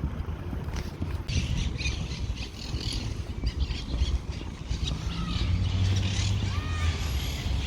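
Birds calling outdoors, with short arching calls repeated in the second half and scratchy high chatter, over low wind buffeting the microphone.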